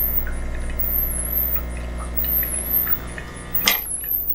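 KitchenAid Pro Line espresso machine's pump running with a steady low hum, with faint drips of espresso into a glass cup. Near the end comes a click, and the hum stops as the shot is ended.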